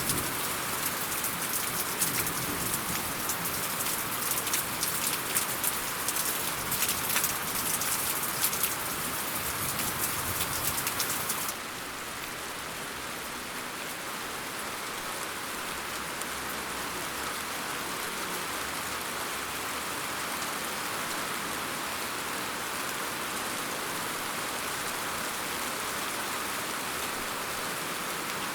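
Steady rain falling, with many sharp, close drop hits at first. About a third of the way through it switches abruptly to a smoother, slightly quieter even hiss of rain.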